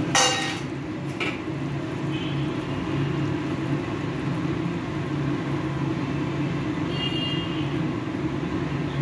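A metal spatula clatters against an aluminium kadai just after the start and again about a second in, with light scraping later, over a steady low rumble from the gas stove and the simmering curry.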